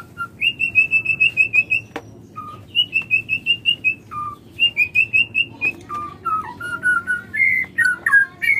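Female white-rumped shama (murai batu) calling in quick runs of short, clear whistled notes, about eight a second. Some runs are pitched high and others lower. A single sharp click comes about two seconds in.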